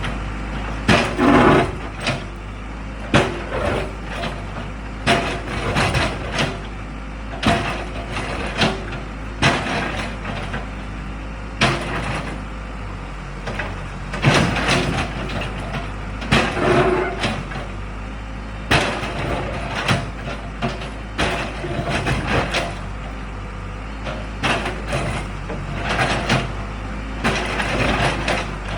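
Case 580 backhoe loader's diesel engine running steadily while its bucket digs into broken concrete, with knocks and scrapes every second or two.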